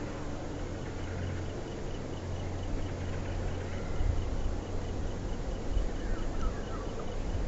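Low steady rumble of a slow-moving train hauled by Class 5E1 electric locomotives, with an insect chirping in a steady rhythm over it.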